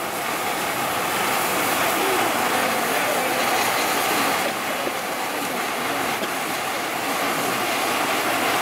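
A row of fountain fireworks (gerbs) spraying sparks with a steady hiss.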